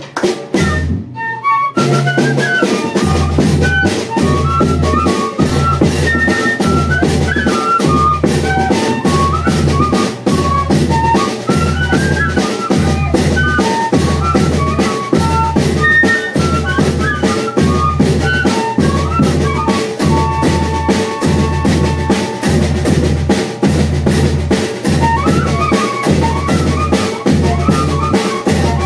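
Banda de pífano playing an instrumental passage: a fife melody of short notes over a steady zabumba bass-drum beat with snare and cymbals. There is a brief break about a second in before the band comes back in.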